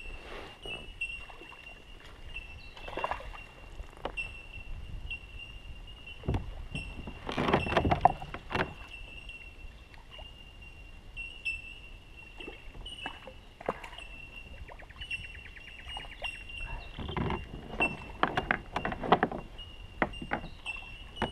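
A hooked bass splashing and thrashing at the water's surface beside a kayak as it is played on a light spinning rod, with the loudest splashes coming in two spells, about a third of the way in and again near the end. A short rapid run of ticks comes about two-thirds through, and a faint steady high tone sits underneath.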